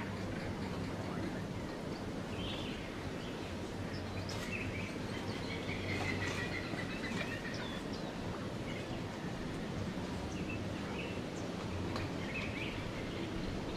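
Outdoor ambience: scattered bird chirps over a steady low hum.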